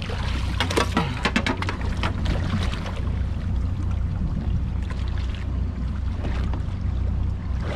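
Water splashing as a speared wahoo thrashes at the surface beside the boat, a cluster of sharp splashes in the first couple of seconds, then lighter sloshing. A steady low hum runs underneath, typical of the boat's outboards idling.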